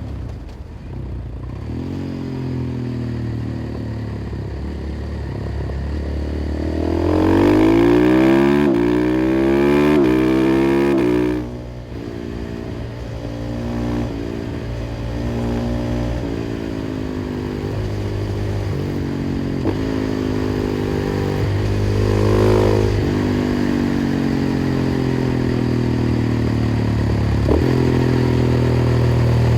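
KTM 500 EXC-F single-cylinder four-stroke engine through an FMF exhaust, under way. About a quarter of the way in it is opened up hard and climbs in pitch, loudest here, until the throttle shuts sharply near the middle. After that it runs on more steadily with smaller rises and drops in revs.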